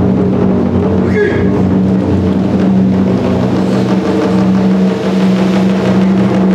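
Taiko ensemble music: a low, steady drone with a fast rolling texture beneath it, held at an even level without distinct single drum strikes.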